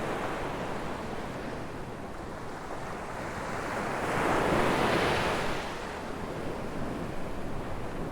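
Ocean waves breaking and washing on a beach, one wave building and cresting about halfway through before receding.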